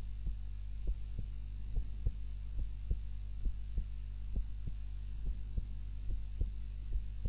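A sleeping woman's heart beating slowly and evenly, each beat a double thump (lub-dub), about 70 beats a minute, over a steady low hum.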